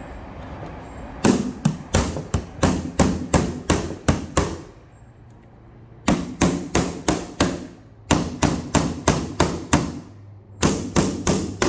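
A hammer nailing carpet gripper rods onto a wooden stair: four quick runs of sharp strikes, about three to four a second, with short pauses between the runs.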